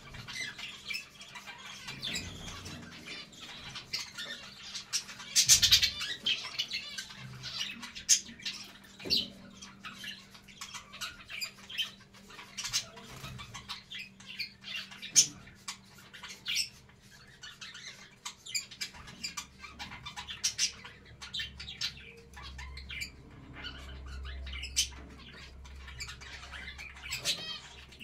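Budgerigars chattering: a steady stream of quick high chirps and squawks, with a louder burst of squawking about six seconds in.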